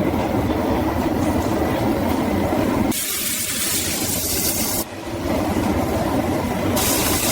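Rumbling roar of a glassworking gas flame, broken twice by sudden cuts to a loud high-pitched hiss.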